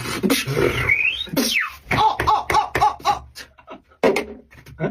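Beatboxed mouth sounds: quick clicks and pops, a rising whistle-like glide about a second in, then a fast run of short pitched vocal blips and a sharp burst near the end.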